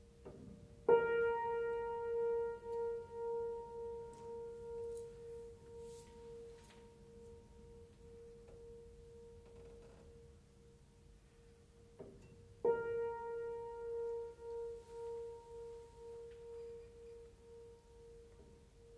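One grand piano note struck twice, about twelve seconds apart. Each time it rings out and slowly fades with a steady wavering pulse.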